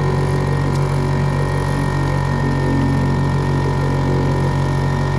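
A small boat's outboard motor running steadily at an even speed.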